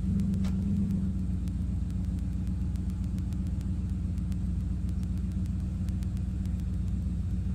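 Vehicle engine idling, a steady low hum.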